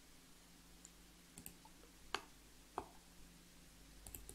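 Near silence broken by a few isolated sharp clicks of computer mouse buttons and keys, the loudest about two seconds in.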